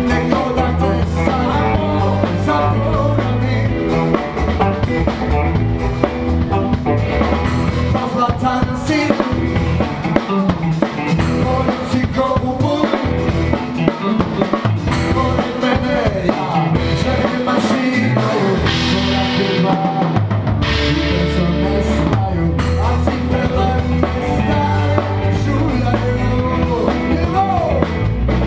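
A band playing a song live, with a drum kit driving a steady beat over bass and other instruments.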